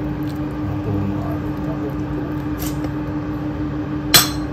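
A steady mechanical hum with one constant low tone, with faint scrapes of a metal utensil moving food in a stainless steel pot of soup, and one sharp metallic clack near the end.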